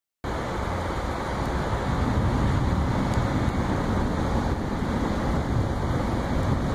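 Wind from a passing thunderstorm buffeting the microphone: a steady, rushing low rumble.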